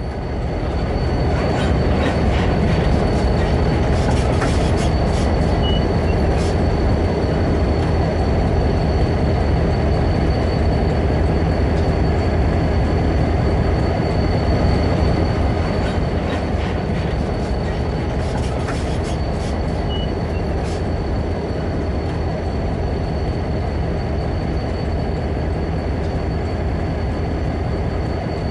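SRY Rail Link diesel freight locomotives running, with a steady low engine rumble and a constant high tone. Short clicks and squeals from the wheels on the rail come through at a few points.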